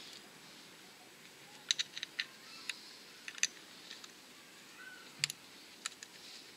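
Light, irregular clicks and taps as a new coolant pump is handled and turned over in gloved hands, about a dozen short sharp ticks in small clusters over a faint steady hiss.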